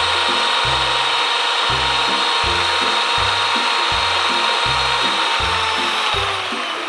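Miyako SM-625 stand mixer's 190-watt motor running at high speed with a steady whine, its beaters churning ice cream batter. Near the end the pitch starts to fall as the motor winds down, switched off by the mixer's automatic timer.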